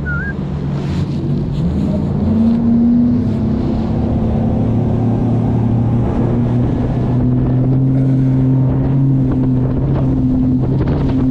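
Bass boat's outboard motor running at speed, its pitch rising about two seconds in and then holding steady, with wind buffeting the microphone.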